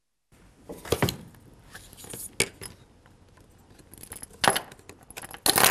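Metal cable connectors and an aluminium electronics box being handled: a series of sharp clicks and clinks, the loudest cluster near the end.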